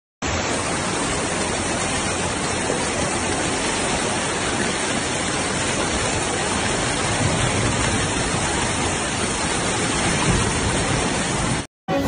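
Fast-flowing floodwater rushing down a street, a loud steady wash of noise that cuts off abruptly near the end.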